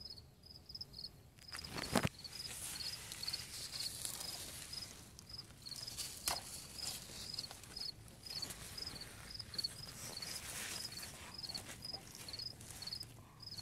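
Insects chirping: short, high chirps repeating steadily throughout. A few rustles and knocks come over them, the sharpest about two seconds in and another about six seconds in.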